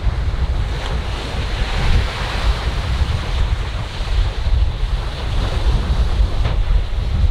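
Ocean surf washing onto a rocky shore as a steady rush, mixed with wind buffeting the microphone in a low, gusty rumble.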